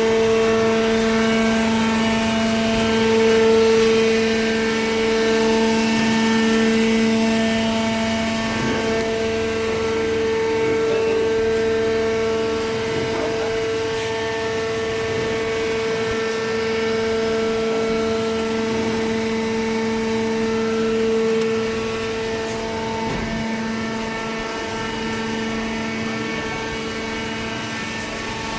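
Hydraulic cardboard baler's motor and pump running, a steady hum with a pitched whine that holds level throughout.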